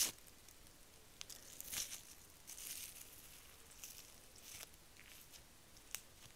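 Long fingernails tapping and scratching on a small clear plastic tub of slime close to the microphone: one sharp tap at the start, then scattered light taps and short scratchy rustles.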